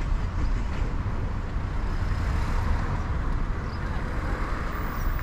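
Street traffic: a car passing on the road, its tyre noise swelling in the middle and easing off, over a steady low rumble.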